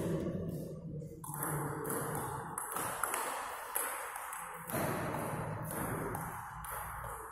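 Table tennis ball being struck back and forth in a rally, with sharp clicks off the paddles and the table, a couple of them standing out in the middle.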